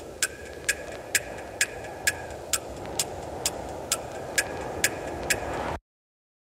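Ticking at a steady pace of about two ticks a second over a soft hiss: the clock-like tail end of an electronic background music track. It cuts off suddenly to silence near the end.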